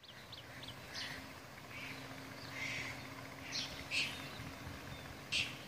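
Birds chirping in short, scattered calls, the loudest about four and five seconds in, over a faint steady low hum.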